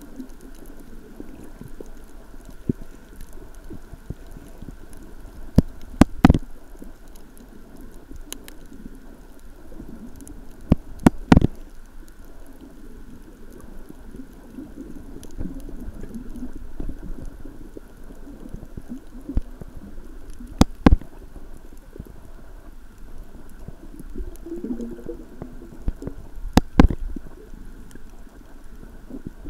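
Muffled underwater sound picked up by a camera submerged in the sea: a low, steady water rumble with a faint hum. About ten sharp clicks and knocks break through it, several in quick pairs.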